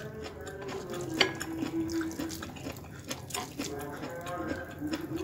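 Quiet eating by hand: chewing, with fingers picking food off a ceramic plate and a few sharp clicks, the loudest about a second in. Faint held tones sit underneath.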